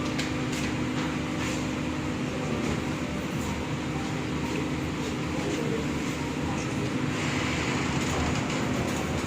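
Steady background noise of a busy café room with a low, even hum and a few faint clicks.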